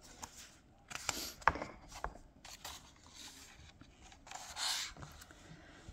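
Pages of a picture book being turned and handled: short spells of sliding, rustling paper with a light tap about a second and a half in.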